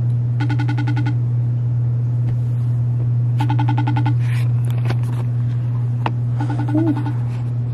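iPhone ringback tone of an outgoing call: three short rings about three seconds apart, with a steady low hum underneath.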